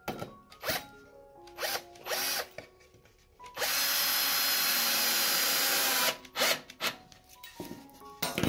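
Power drill running steadily for about two and a half seconds, driving a wood screw through a pine rail into the upright, after a few short knocks of the screw and wood being handled.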